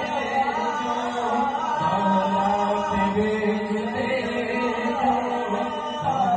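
Chanted devotional recitation, a durood (salutation) on the Prophet's household, sung melodically in a continuous flowing line.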